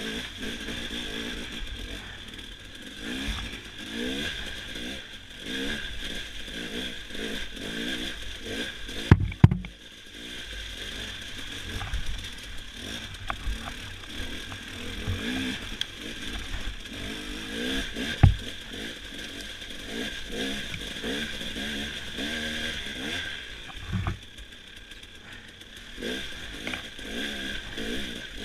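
Dirt bike engine being ridden along a rough trail, its revs rising and falling again and again with the throttle. A few sharp knocks cut through, loudest twice about nine seconds in and once about eighteen seconds in.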